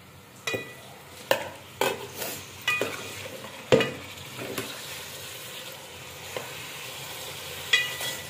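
Steel ladle stirring raw chicken pieces frying in ghee in a metal pot. Sharp metallic clanks of the ladle against the pot come about six times in the first five seconds and twice more near the end, over a steady sizzle.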